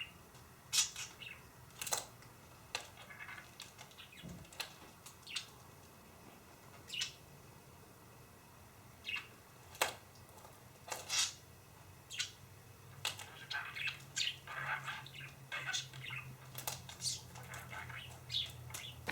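Pet budgerigar chirping in short, sharp, scattered calls, which crowd together into softer chatter over the last several seconds.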